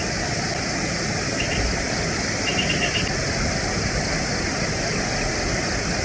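Steady outdoor rushing noise with a rumbling low end, and a bird chirping faintly: one short call about one and a half seconds in and a quick run of four or five notes about two and a half seconds in.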